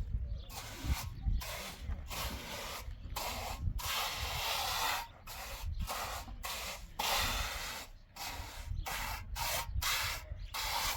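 An irregular series of rasping, scraping strokes, some short and some up to about a second long.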